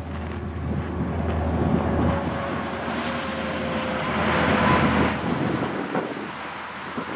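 Highway traffic with wind on the microphone: a semi tractor-trailer's tyres and engine swelling as it passes and then fading, loudest a little past the middle.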